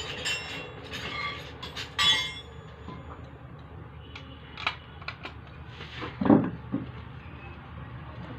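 Metal parts of a Maruti car alternator clinking and scraping as its housing is handled and taken apart. A few sharp taps come near the middle, and a loud dull knock of metal on the wooden bench comes a little after six seconds.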